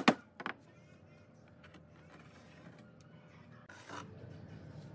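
Sharp wooden knocks at the start as a wooden block and tape measure are handled against a pine tabletop, then quiet handling with a short rustle near the end.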